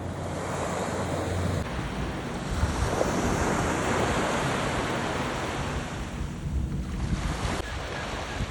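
Small ocean waves breaking and washing up the beach: a wash of surf that swells over the first few seconds and then draws back.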